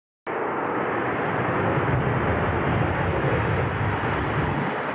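Boeing 787-9 Dreamliner's jet engines running as the airliner passes, a steady deep rumble with a rushing roar over it. It starts abruptly a moment in.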